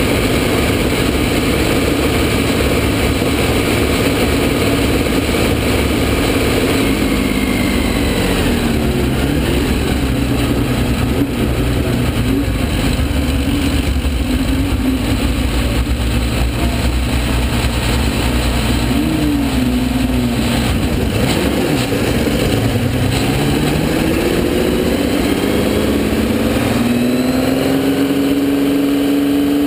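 Porsche 917K's air-cooled flat-twelve racing engine heard from onboard the car at speed. Its pitch drops about eight seconds in, dips and climbs again through the middle, and rises steadily near the end as it accelerates.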